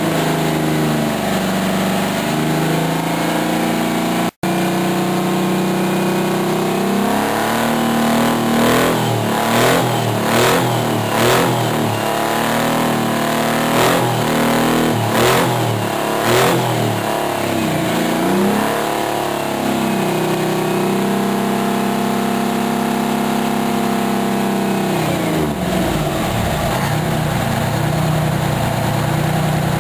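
Detroit Diesel 12V-71, a two-stroke V12 diesel in a 1974 Kenworth tractor, revved in a run of quick blips. It is then held at raised revs for a few seconds before dropping back to idle near the end.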